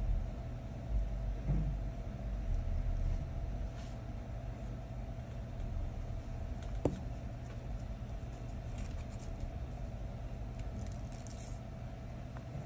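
Light handling knocks of a phone being moved and set down on a work mat, with one sharp click about seven seconds in, over a steady low background rumble with a faint constant tone.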